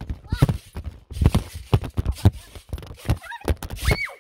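Trampoline mat thudding under children's jumps, heard from a phone lying on the mat and bouncing with it: uneven thumps about two a second. A child's short squeal near the end.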